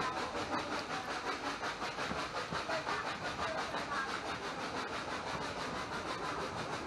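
Narrow-gauge train running along the line, heard at the side of a carriage: wheels and carriage rattling over the track with a fast, even pulsing.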